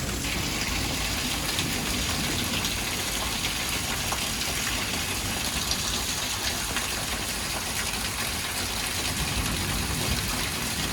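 Steady rain falling, a continuous even hiss with no break.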